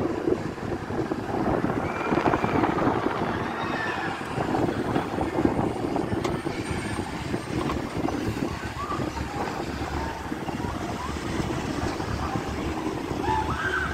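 Steady rumbling wind and outdoor noise heard from a moving open-air ride car high above an amusement park, with faint distant voices now and then.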